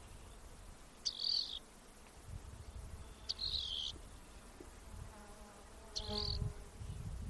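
Rock wren singing: three short, high trilled phrases about two to three seconds apart, over a low wind rumble.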